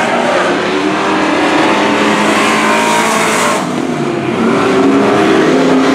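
Several dirt-track racing trucks' engines run hard at speed around the track, their pitch rising and falling as they pass. The sound dips briefly a little past halfway, then swells again as trucks come near.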